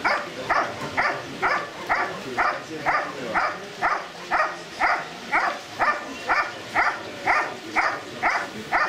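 German Shepherd barking steadily at about two barks a second, guarding the motionless helper in IGP protection work.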